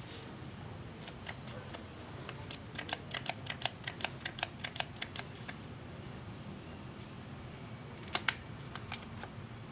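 Light, sharp plastic clicks from a Five Star cordless combo tool being handled and its sanding-disc attachment worked: a quick run of about four or five clicks a second through the middle, then two louder clicks near the end.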